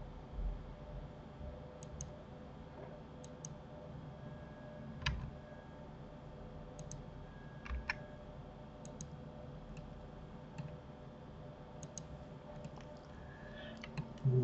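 Computer mouse and keyboard clicks: sharp separate clicks every second or two, many in quick pairs, with a couple of louder taps, over a faint steady hum.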